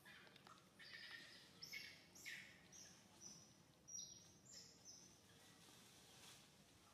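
Faint, short, high-pitched animal chirps, several spread over the first few seconds, over an otherwise near-silent background.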